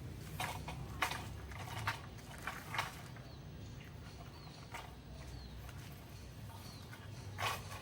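Handling noise as antenna wire is worked by hand: scattered clicks and rustles, loudest about a second in, near the three-second mark and near the end, over a low steady hum, with a few faint high chirps in the middle.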